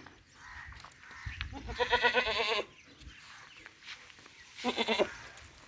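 Gulabi goats bleating: one long quavering bleat about a second and a half in, and a shorter bleat near the end.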